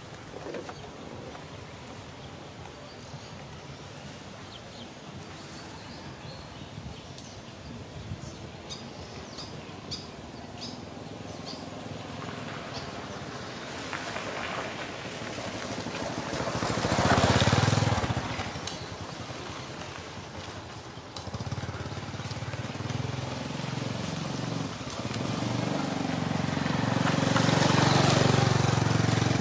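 Motor vehicle traffic. One vehicle passes, its noise swelling and fading around the middle. Then a low engine hum builds and grows louder toward the end as another vehicle approaches.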